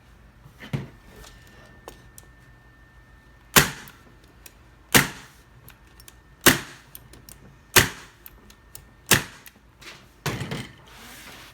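Hand staple gun firing staples through fabric into the stool's wooden frame: five sharp snaps about a second and a half apart, with a softer one about a second in and a short scuffling noise near the end.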